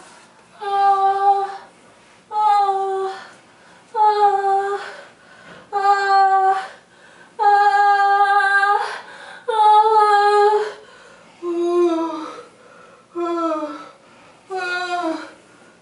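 A woman's voice making a regular series of sustained, moaning vocal tones, about one every second and a half, nine in all; from about eleven seconds in, each tone slides downward in pitch at its end.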